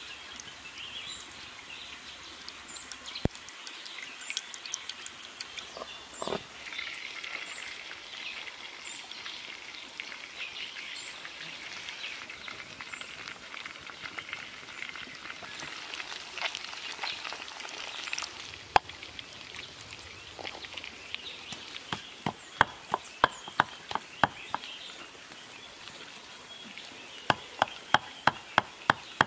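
Wood fire crackling and hissing under a clay cooking pot. Then a stone pestle pounds in a clay mortar in quick, even strokes, about four a second, in two runs near the end.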